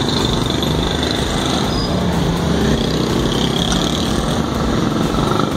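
Steady street traffic noise: vehicle engines running with a continuous low rumble.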